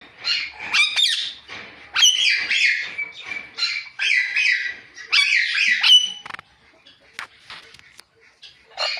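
Ringneck parakeet chirping and squawking in four bouts of high-pitched calls, each about a second long, over the first six seconds, then only a few faint clicks.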